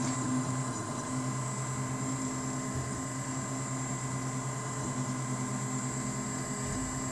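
UP Mini 2 3D printer running as it prints its base layer: the print head's cooling fan and stepper motors make a steady hum and whir with a thin constant high whine.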